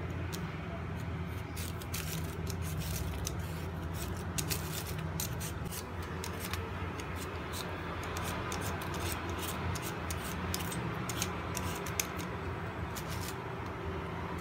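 A vegetable peeler scraping the skin off a raw sweet potato in many quick, uneven strokes, over a steady low hum.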